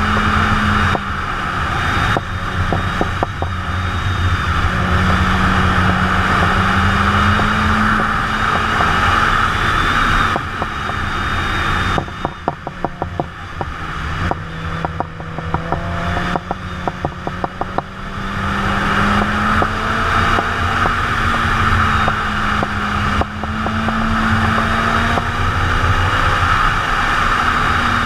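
Sport motorcycle engine running under way, its pitch rising and falling with the throttle, over a steady rush of wind on the microphone. About midway the wind eases and the engine drops to a lower note with a rapid ticking, then picks up again.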